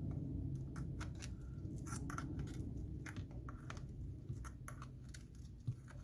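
A screwdriver prying an iPhone 7 battery up off its adhesive, giving irregular small clicks, crackles and scrapes as the glue tears. A steady low hum runs under it.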